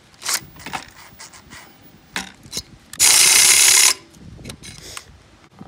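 Small 12-volt cordless drill pushing a 12 mm bit through a motorcycle exhaust muffler's end cap, struggling with the big bit. Scattered clicks and ticks, then a loud burst of drilling lasting about a second, about three seconds in.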